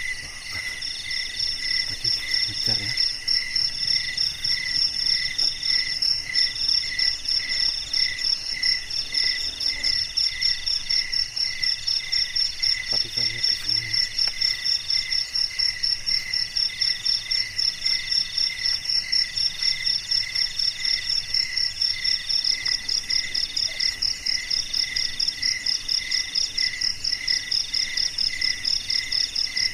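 Night chorus of crickets and other insects, several calling at once at different pitches: a fast high trill, a call in long notes with short breaks, and a lower chirp about twice a second.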